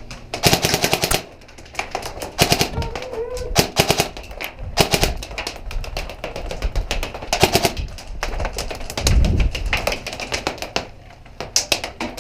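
Airsoft electric gun with a DSG gearbox firing full-auto at a very high rate: several quick bursts of rapid snapping shots, the longest about half a second in. A dull low thump follows near the end.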